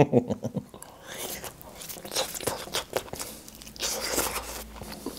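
A man biting into and chewing a fried, masala-coated chicken leg piece (chicken chukka), close to the microphone. The eating sounds come as an irregular run of small bites and chews.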